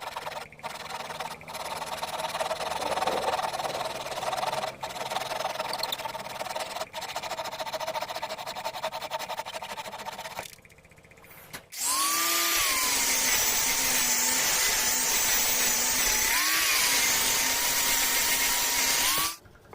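Electric power tool cutting or drilling wood in two runs. The second run is louder, and its motor pitch dips and recovers under load before it cuts off.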